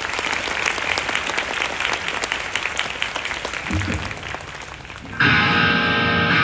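Concert audience applauding for about five seconds. About five seconds in, a sustained instrumental chord comes in suddenly and holds.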